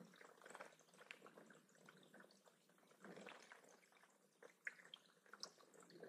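Faint trickle of a small rock waterfall into a shallow pebble-bottomed pond, with irregular drips and small splashes.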